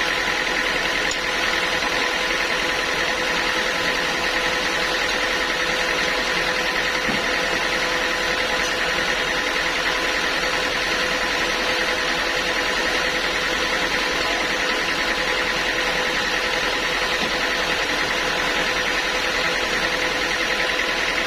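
Sawmill machinery running steadily: a constant mechanical drone with a steady whine over it.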